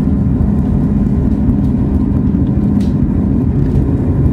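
Steady low rumble and hum inside a moving aerial ropeway cabin as it travels along its cables.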